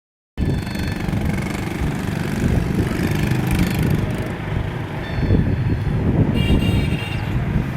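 Wind rumbling and buffeting against the microphone outdoors in stormy, rainy weather, with a brief high-pitched sound near the end.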